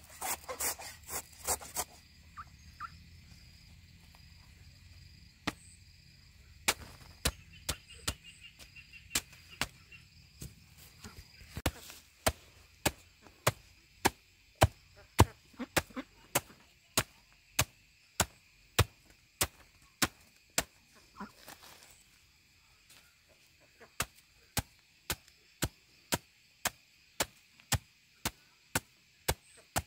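Chopping with a heavy blade: sharp single strokes, scattered at first, then a steady rhythm of about one and a half strokes a second, broken by a pause of about two seconds past the middle. Insects buzz faintly and steadily underneath.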